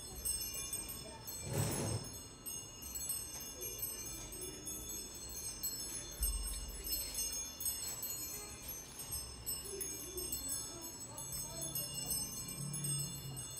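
Small metal chimes ringing and jingling together throughout, with a sharp hit on the snare drum about two seconds in, as the snare drum is played with a chime-like beater in a contemporary solo piece.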